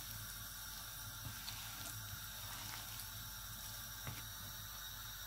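Faint wet squelching of hands mixing chicken pieces in a thick spice batter in a bowl, a few soft squishes over a steady low hiss.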